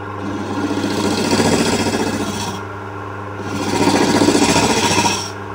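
A hook tool cutting into the end grain of a spinning wooden cup on a lathe, hollowing downward toward a flat bottom: two long scraping cuts with a short pause just past the middle. The lathe motor hums steadily underneath.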